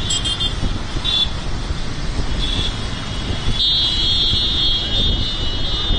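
Many motorcycles running together in a slow mass ride, a dense engine rumble. Over it a high-pitched tone sounds in short blasts, then holds steadily from a little past halfway.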